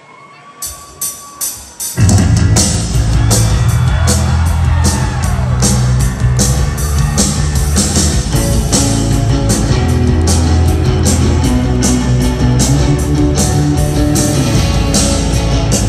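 A live rock band starting a song: four sharp count-in hits, then drums, bass and electric guitars come in together loudly about two seconds in and play on steadily.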